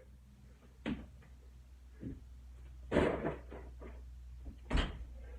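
Thuds and scuffs of a person doing burpee-style reps on the floor: dropping down, pushing up and landing from a jump. There are four or so knocks about a second apart, the two near the end heaviest.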